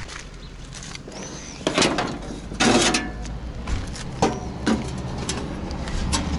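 Steel side cowl of a 1967 Vyatka Elektron scooter being unlatched and lifted open: a series of metallic clunks and rattles, the loudest about three seconds in.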